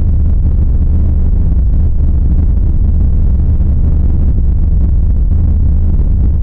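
Creepy ambient sound effect: a loud, steady, deep drone with a faint noisy haze above it, unchanging throughout.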